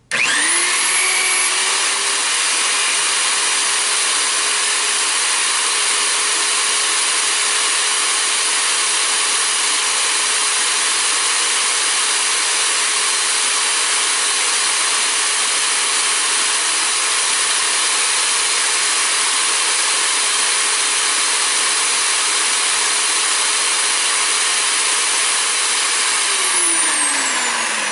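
Central Machinery portable electric pipe threader running in reverse, backing its die off a freshly cut pipe thread: a steady motor whine that starts abruptly and spins down with a falling pitch near the end.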